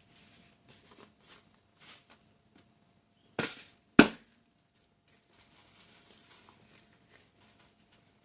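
Rubber balloons bursting: two loud sharp pops about half a second apart, the second the louder, between faint rubbing and rustling of hands on rubber.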